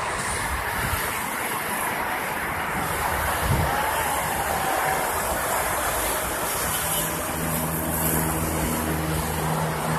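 Dense multi-lane expressway traffic passing below: a steady rush of tyres and engines. A low steady hum joins about seven seconds in.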